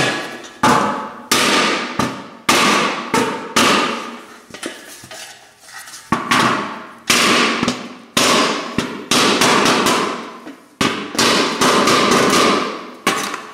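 Mallet blows on the porcelain-enamelled steel lid of a Weber kettle grill, knocking out dents: about a dozen sharp strikes, each leaving a metallic ring that fades over a second or so, with a short pause around five seconds in.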